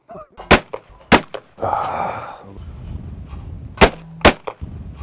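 Over-and-under shotgun firing: four sharp reports in two pairs, each pair about half a second apart, the first pair about half a second in and the second near the end.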